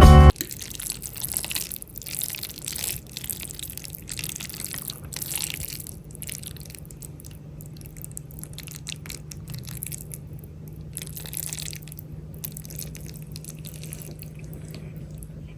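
Wet clicks and small splashes of liquid, scattered and irregular, thinning out after the first few seconds, over a low steady hum.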